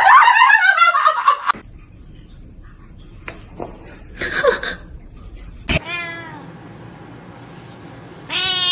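Domestic cat meowing and yowling: a long, loud wavering call in the first second and a half, shorter calls about four and six seconds in, the second falling in pitch, and another drawn-out call near the end. A sharp click comes just before the six-second call.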